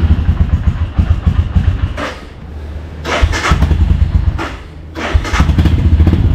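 Royal Enfield Himalayan motorcycle's single-cylinder engine running with a fast low pulse, revved up three times and dropping back to a quieter idle twice in between.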